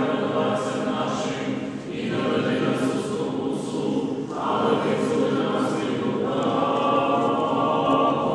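Church choir singing unaccompanied liturgical chant, the sustained voices ringing in a large hall, with a short break between phrases about two seconds in.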